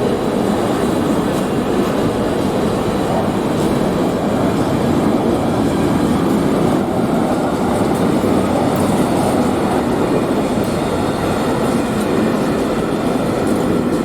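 A train passing close by: the steady, loud rumble of its wagons running over the rails.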